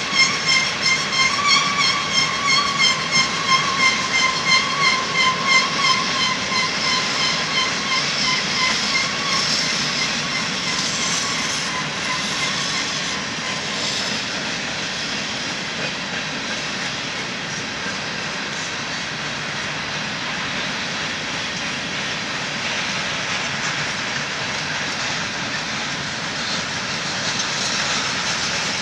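Covered hopper cars of a Union Pacific freight train rolling past on steel rails. For the first several seconds a high metallic squeal pulses about twice a second, then fades into the steady rolling noise of wheels on rail, with a few sharp clicks about halfway through.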